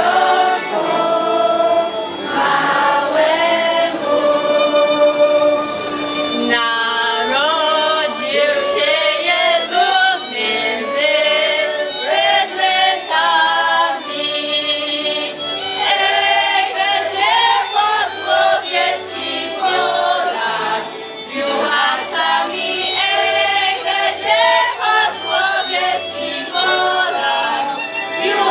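Choir of girls and young women singing together in Polish highland (Górale) folk style, accompanied by a small string band of fiddles.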